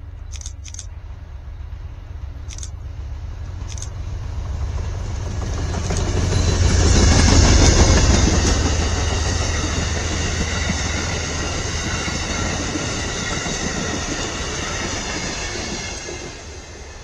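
Amtrak passenger train of Amfleet coaches passing close by on the rails. The rumble builds to its loudest about seven or eight seconds in, then settles into the steady clatter and ringing of the coaches' wheels, dropping off just before the end. A few sharp high clicks sound in the first four seconds.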